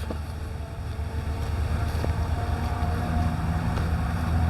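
Steady low rumble with an engine's even hum over it, slowly growing louder.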